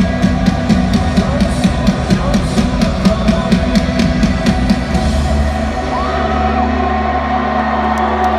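Live rock band playing loud in an arena, heard from within the crowd: a steady fast drum beat drives the music, then drops out about five seconds in, leaving a held low bass tone with the crowd yelling over it.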